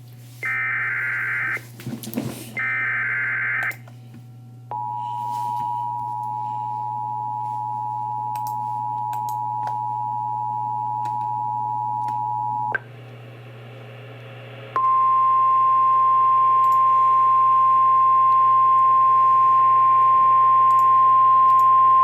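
Emergency Alert System tones: the last two of three SAME header data bursts, each about a second of screechy digital warble, then the two-tone EAS attention signal held steady for about eight seconds. After a moment of static hiss comes the NOAA Weather Radio 1050 Hz single-tone warning alarm, loud and steady, which opens a new severe thunderstorm warning.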